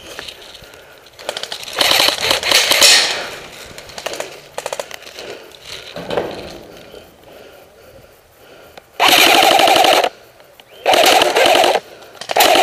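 Airsoft rifles firing full-auto bursts, a rapid even rattle of shots: one long burst about two seconds in, a few scattered shots, then two loud bursts of about a second each near the end.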